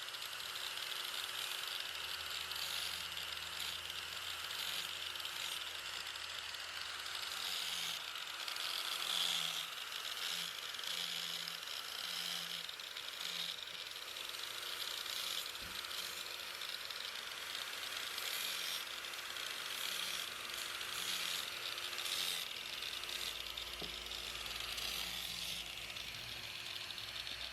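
Power tool working wood: a steady, hissing rasp of abrasive or cutter on wood over a low motor hum.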